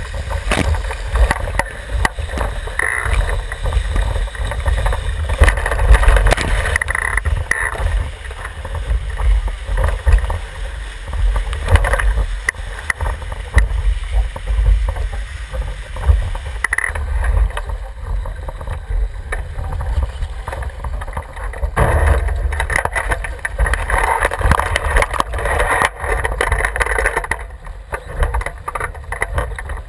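Water rushing and spraying along the hull of a Javelin skiff planing fast downwind under spinnaker, over a heavy rumble and scattered knocks on the boat-mounted camera. It grows somewhat quieter near the end as the boat slows.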